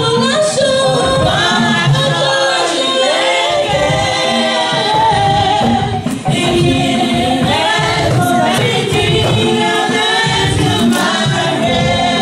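A church congregation singing a hymn together in chorus, men's and women's voices.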